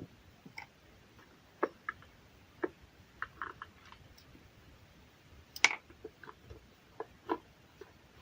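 Light clicks, taps and knocks of parts and tools being handled while a coffee maker is worked on. About a dozen are scattered irregularly, and the sharpest comes a little past halfway.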